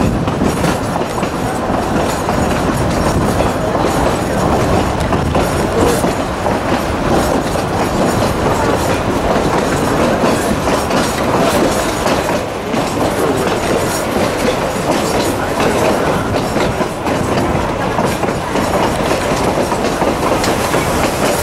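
Narrow-gauge passenger train running along the track, heard from aboard: a steady, loud rumble and clatter of wheels on the rails.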